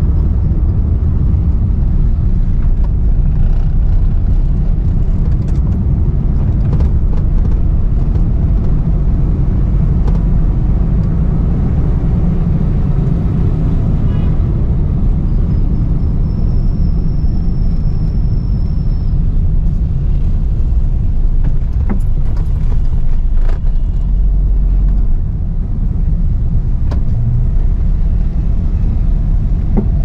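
Steady low engine and road rumble heard from inside the cabin of a Suzuki Mehran on the move, with a faint high whine briefly about halfway through and a few light clicks later on.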